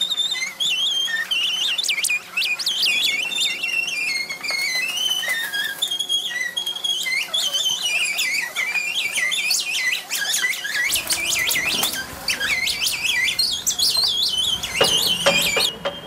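Experimental electronic soundtrack of dense, quick, sliding high whistles and chirps over a faint steady hum. A low rumble joins about two-thirds of the way through, and a flurry of clicks comes near the end.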